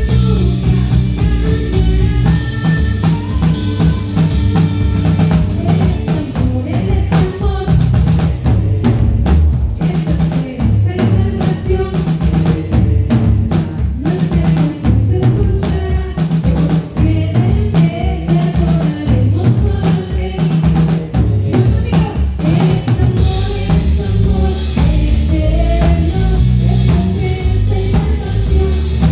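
A live band playing: drum kit keeping a steady beat, with congas, electric guitar and a singer.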